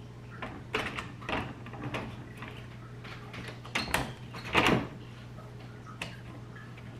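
Clicks and knocks of the plastic and metal parts of a Sharp MX-407FU1 printer fuser unit being handled and seated back together, a dozen or so separate taps with the loudest a short clattering scrape a little past the middle. A steady low hum runs underneath.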